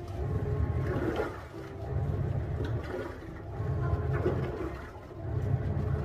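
IFB TL-SBRS 8 kg top-load washing machine agitating during its rinse cycle: the pulsator drives the clothes and water back and forth in even swells about every second and a half, each swell a low motor rumble with water churning and sloshing.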